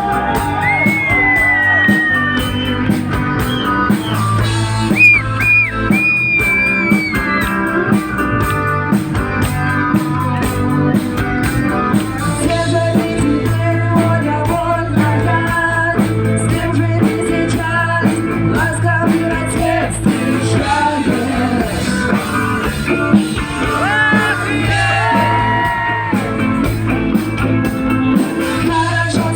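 Live rock-style song with a singer, guitar, bass and drums, played loud over a sound system.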